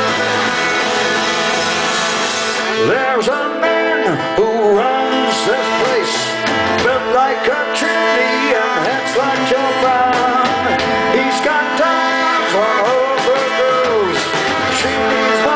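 A live indie rock band plays: acoustic guitar, cello, electric guitar and drums. A man's lead vocal comes in about two and a half seconds in and carries on over the band.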